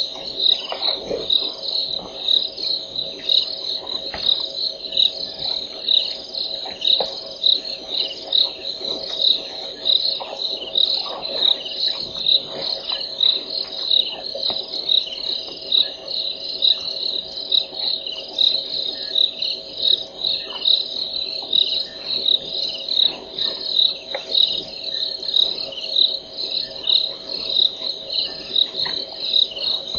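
Insects chirping in a steady, evenly repeating high-pitched rhythm, over a faint steady lower hum.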